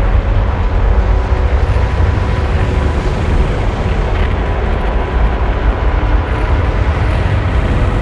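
Noise-based electronic techno: a dense, rumbling wall of noise with a heavy low end and a few faint held tones.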